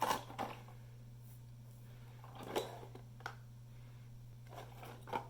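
Handling noise from a cardboard miniatures box being turned over and held: a few soft knocks and rustles, spread out, over a steady low hum.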